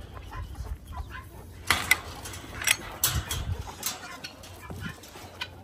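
Chickens clucking, mixed with several sharp clicks and knocks.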